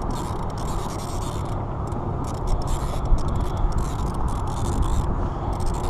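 Spinning fishing reel being cranked, a scraping mechanical sound with clusters of quick clicks, over a steady low rumble.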